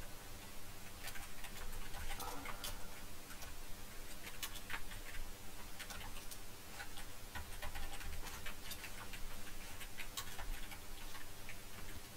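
Typing on a computer keyboard: irregular key clicks, in uneven runs with short gaps.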